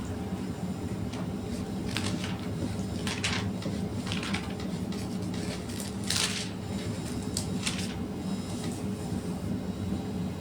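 Bible pages being turned while a verse is looked up: several short papery rustles, the longest a little past the middle, over a steady low hum.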